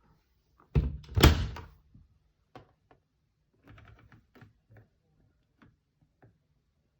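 A washing machine door being shut with a loud double thunk about a second in, followed by a scatter of light clicks and knocks.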